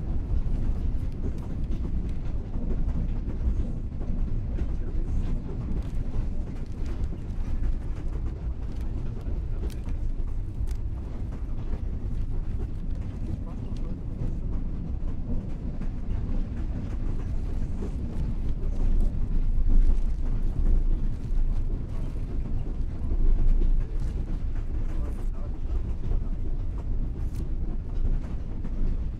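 Railway carriage running along the track, heard from inside the compartment: a steady low rumble with scattered light clicks.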